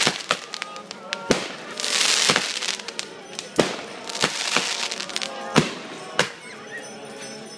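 Fireworks going off: several sharp bangs a second or so apart, with two long hissing rushes, one right at the start and one a little after a second in.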